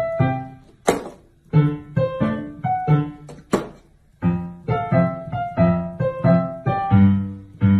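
Background music: a run of short keyboard notes, with a sharp percussive hit about a second in and another about three and a half seconds in.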